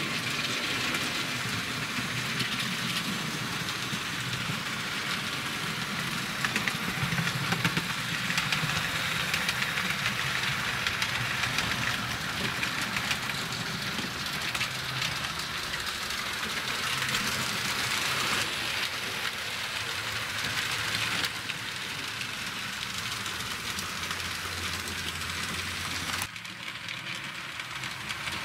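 Model trains running on a layout: a steady whirring and rattling of wheels and motors on the track. The sound changes abruptly a few times.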